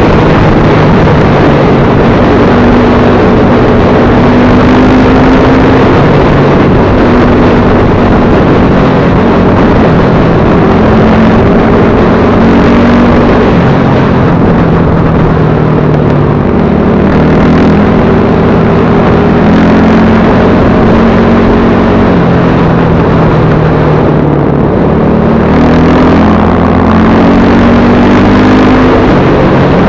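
BSE Z6 enduro motorcycle engine running under way, its pitch repeatedly rising and falling as the throttle opens and closes and climbing again near the end, over a dense rushing noise.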